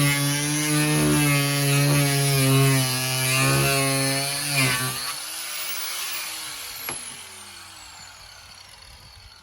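Electric power tool motor running with a wavering pitch, then switched off about four and a half seconds in and winding down, its pitch falling and fading over several seconds.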